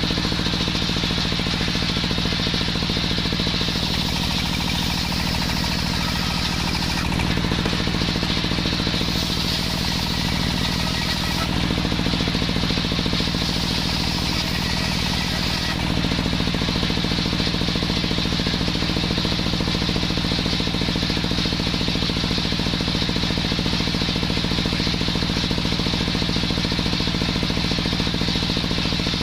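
Small engine of a homemade circular saw running steadily while sawing waru wood. Its tone shifts a few times in the first half, then stays even.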